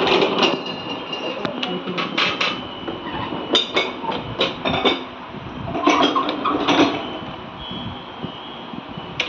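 Ceramic lidded pots, bowls and wooden food trays clinking and knocking as they are moved and set down on a tiled floor, in several short clusters of clatter.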